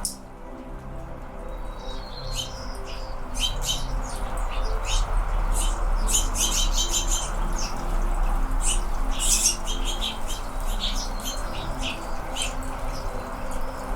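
Anna's hummingbirds giving sharp chip calls, often in quick runs of several notes, over a steady low hum.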